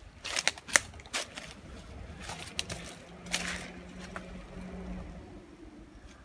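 Footsteps crunching and crackling on dry leaves, twigs and stones, with a quick run of sharp snaps in the first second or so.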